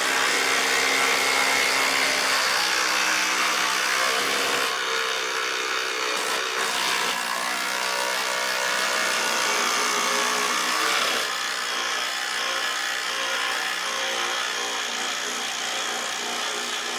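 Two cordless brushless impact drivers, a Ryobi and a Dewalt DCF887, running together and hammering long Spax screws into stacked boards. It is a steady, loud clatter of impacts with motor whine, and it shifts slightly about eleven seconds in.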